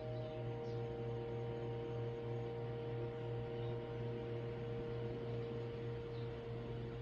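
Steady low hum with a few faint, unchanging higher tones above it.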